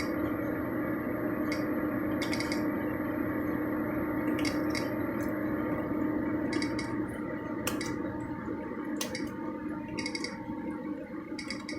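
Scattered light clicks and clinks of plastic keyboard parts being handled, over a steady rushing noise with a low hum that eases off after about eight seconds.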